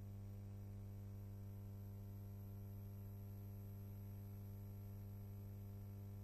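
Steady electrical mains hum with a faint hiss, unchanging throughout: the background noise of the tape transfer of silent archival film, with no sound of the scene itself.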